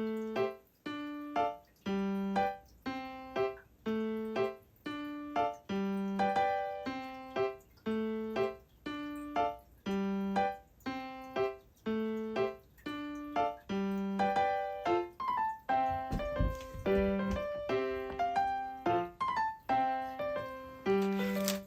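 Background piano-like keyboard music: a simple, evenly paced melody of short notes, about two a second. Some low thumps are mixed in during the second half.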